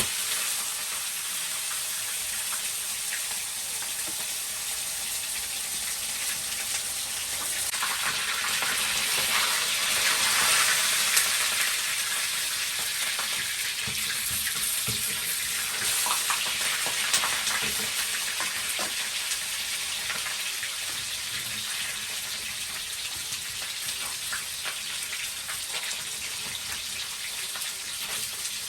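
Fish frying in hot oil in a pan: a steady sizzle with scattered crackles, swelling louder about eight to fifteen seconds in.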